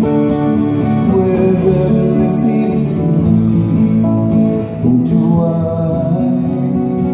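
Live solo acoustic performance: a man singing a slow song into a microphone while playing acoustic guitar, heard from the audience in a concert hall.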